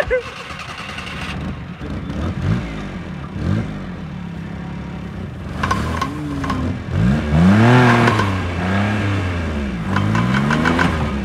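Maruti 800's small three-cylinder petrol engine revved again and again, its pitch rising and falling about half a dozen times: the car is stuck and being driven hard to get it out.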